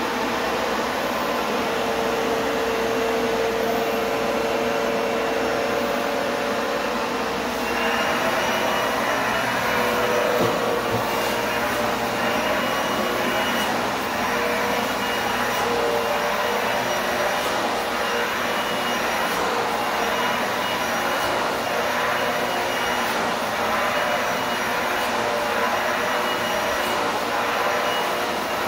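Vacuum cleaner running steadily while its long wand and floor nozzle are pushed over a stained hardwood floor, picking up dust before a second coat of polyurethane. The sound grows brighter and hissier about eight seconds in.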